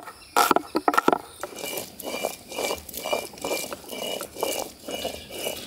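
Hand food preparation: a few sharp knocks in the first second, then steady rhythmic scraping strokes, about two a second.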